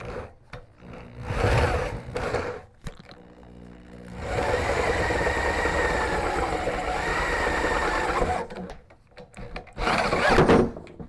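Electric drill with a large twist bit boring out a bolt hole in a metal swivel seat adapter plate to enlarge it. A few short bursts of drilling, then a steady run of about four seconds with a motor whine, then more short bursts near the end.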